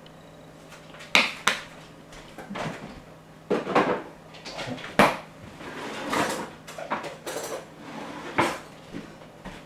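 Kitchen clatter: a string of sharp knocks, clinks and rattles of things being handled, with the loudest clacks about a second in, around five seconds in and near the end.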